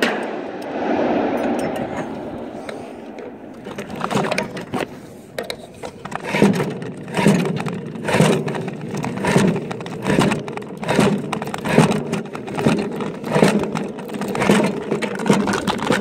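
Repeated scraping and knocking of metal on the steel roof of a water tower, about three strokes every two seconds from around six seconds in, after a few seconds of rushing noise.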